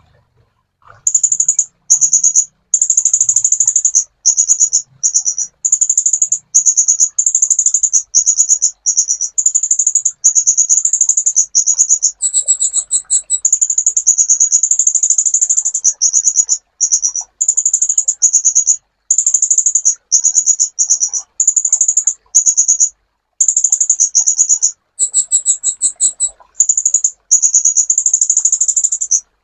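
Kolibri ninja (sunbird) singing a very high-pitched, rapid trilling chatter in runs of one to two seconds with brief gaps. About 12 s in and again about 25 s in, it switches briefly to a slightly higher, more clearly separated trill.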